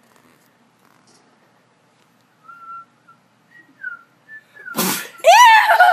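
A person's sneeze: a few short, high-pitched catching breaths, then one sharp sneeze near the end. A loud, high-pitched voice follows it at once.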